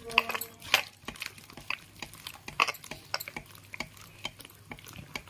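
Hand beating thick gram-flour (besan) batter in a stainless steel bowl: irregular wet slaps and taps against the steel.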